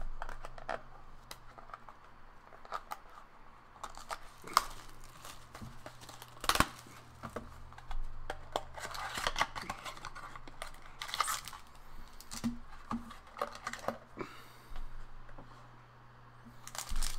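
Trading card pack wrapping and cardboard box being handled and torn open: irregular crinkling and tearing with scattered sharp clicks and taps, the loudest click about six and a half seconds in.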